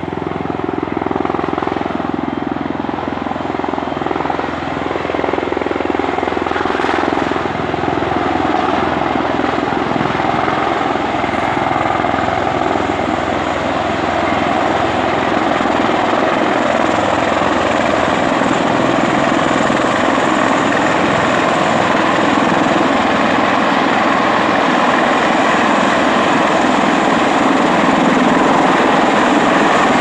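V-22 Osprey tiltrotor coming in to land, its proprotors and engines making a loud, steady roar. The roar grows gradually louder as the aircraft descends.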